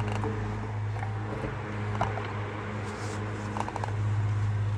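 Vintage GE PG10 10-inch fan running with a steady low buzzing rattle from a loose part vibrating; the buzz grows stronger near the end. A few light clicks and rustles as a paper towel is worked into the fan to hush the rattle.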